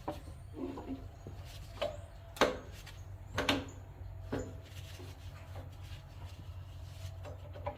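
A handful of sharp clicks and knocks, spaced about a second apart, as the newly fitted range selector lever on a Kioti CK2510 tractor is worked through its positions. The linkage is dry and needs a good greasing.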